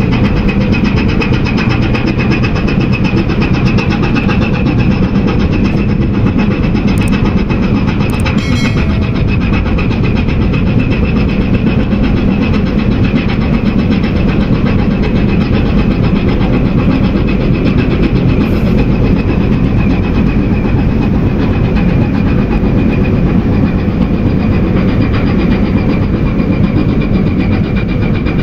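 A large engine running steadily at constant power: a low rumble with a steady high whine over it.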